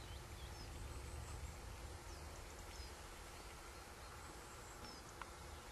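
Quiet outdoor ambience: a steady low rumble with scattered faint high chirps.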